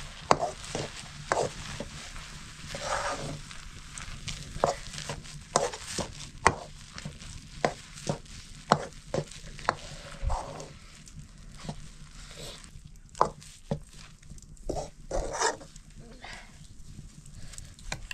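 Wooden stirrer knocking and scraping against a cooking pot at irregular intervals while thick millet-flour dhindo is stirred.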